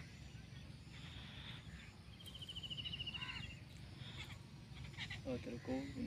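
Wild birds calling from the trees: short repeated calls and, about two seconds in, a rapid high trill lasting over a second, with a low murmur near the end.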